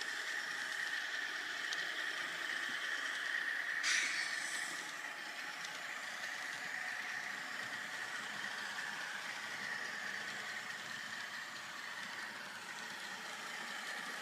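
Model train DCC sound decoder playing a steady diesel engine sound through the locomotive's small speaker, with a short air-brake hiss about four seconds in that fades over about a second.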